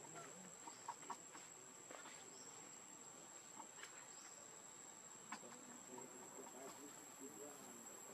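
Faint forest ambience: one insect, cricket-like, gives a steady high-pitched drone. A few soft clicks and taps sound over it.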